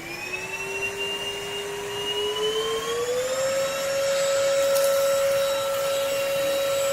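Cordless stick vacuum cleaner's motor spinning up with a rising whine, climbing again about three seconds in and then running steady at a higher pitch.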